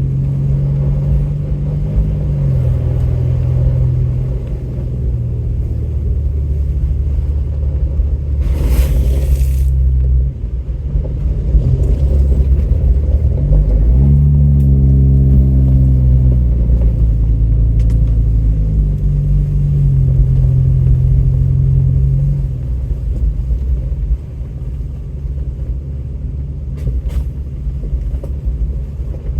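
Truck engine running under load on a rough off-road trail, its pitch rising and dropping repeatedly as the driver works the throttle, with a clear climb in revs about halfway through. A brief burst of noise cuts across the engine sound about nine seconds in.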